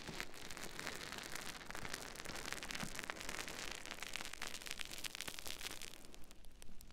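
Sponge rubbed against an ASMR microphone, giving a dense crackling rustle that thins to scattered crackles about six seconds in.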